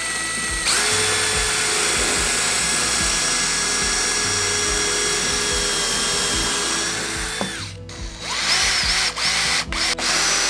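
Cordless drill boring a pilot hole through a wooden batten, its motor running at a steady high whine for about seven seconds before stopping. Then a cordless drill-driver drives a screw into the batten in short stop-start bursts, its pitch rising and falling.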